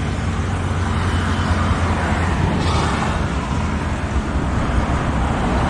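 Steady roadside traffic noise: a low rumble of vehicles passing on the highway, with a brief brighter hiss about two and a half seconds in.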